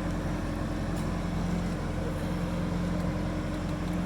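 John Deere 450 crawler's engine running steadily with a constant low hum.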